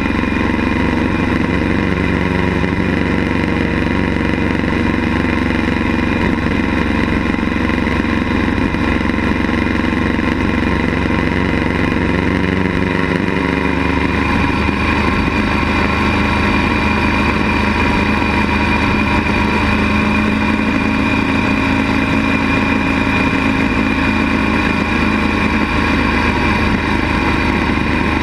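Motorcycle engine running steadily while the bike is ridden along a road, its note shifting about halfway through.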